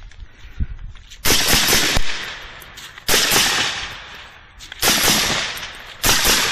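Suppressed PWS MK116 Mod 1 piston AR rifle firing four quick strings of shots. The first string comes about a second in, and the strings are roughly two seconds apart.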